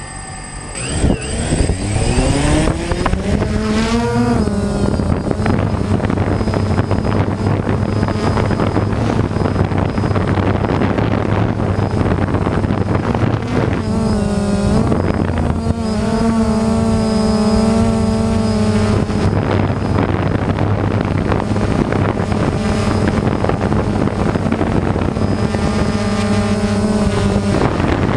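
Electric motors and propellers of an FPV multirotor spinning up with a rising whine just after being armed, then a steady buzz of flight. The pitch shifts briefly about halfway and again near the end as the throttle changes.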